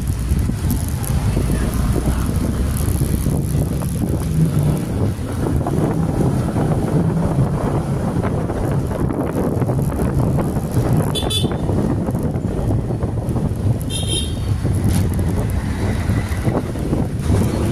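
Motorcycle engine running under way, with road and wind noise. Two short, high-pitched horn beeps come about eleven seconds in and again some three seconds later.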